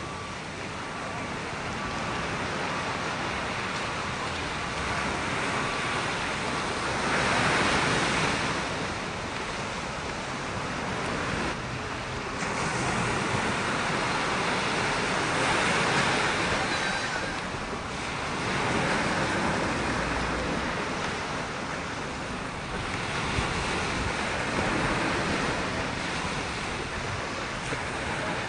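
Small ocean waves breaking and washing over the shallows, the surf rising and falling every few seconds.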